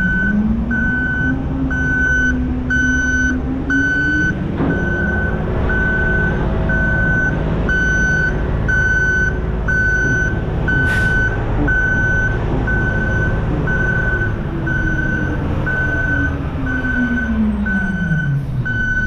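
Recycling truck's back-up alarm beeping steadily, about one and a half beeps a second, over the truck's engine, which revs up over the first few seconds, holds, and drops back to idle near the end. A short sharp hiss cuts in about eleven seconds in.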